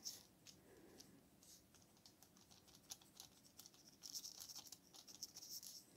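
Faint scratchy dabbing of a paintbrush on paper, light short strokes that come thicker in the second half.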